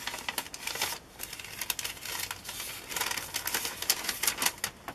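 Paper letter rustling and crinkling as it is handled and opened, in a quick irregular run of crackles.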